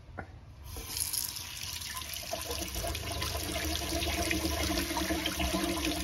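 Water running from a faucet into a sink, starting about a second in and growing steadily. A water pump runs with a steady hum underneath.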